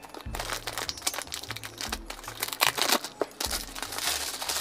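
Clear plastic shrink-wrap being torn and peeled off a cardboard perfume box, crinkling and crackling irregularly throughout.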